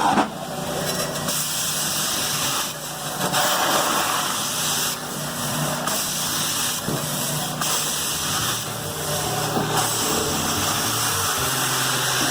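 Carpet steam-cleaning (hot water extraction) equipment running: a steady hiss of spraying and suction with a low machine hum underneath, the hiss swelling and dropping every second or two as the wand is worked.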